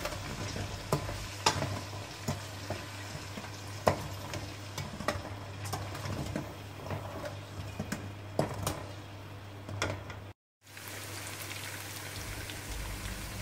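Sliced onions sizzling in hot oil in a karahi as they fry toward light brown, stirred with a steel spatula that clinks and scrapes against the pan at irregular moments. The sound drops out briefly about ten seconds in.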